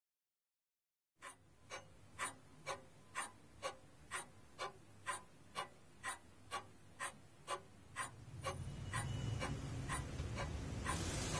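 Pendulum wall clock ticking steadily, about two ticks a second, starting about a second in after silence. From about eight seconds in, a steady low rumble and hiss rises beneath the ticks.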